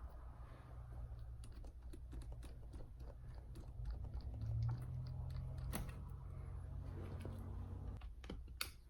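Small screws being unscrewed from a laptop screen panel: scattered light clicks and scrapes of screwdriver and screws on plastic, over a steady low hum.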